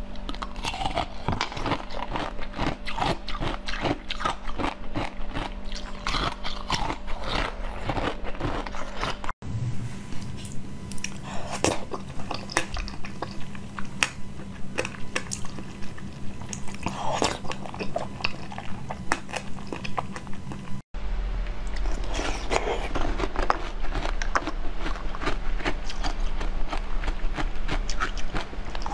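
Close-miked biting and chewing of jelly sweets: a quick, uneven run of small wet clicks and crunches, broken twice by brief cuts, over a steady low hum.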